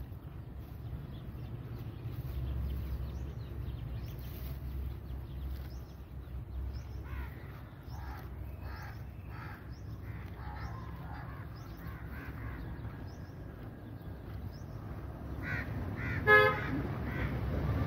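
Low steady outdoor rumble with a few faint calls in the middle. About 16 seconds in, one short vehicle horn toot is the loudest sound.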